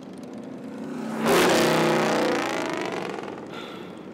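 Pack of motorcycles riding past. The engine sound builds, peaks suddenly about a second in as the bikes go by close, then falls in pitch and fades away.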